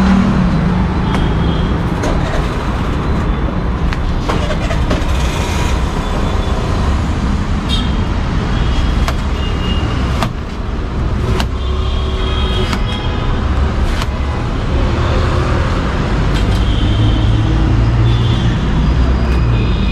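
Steady street traffic noise, with scattered sharp taps of a knife blade striking the steel counter as a watermelon is cut into wedges.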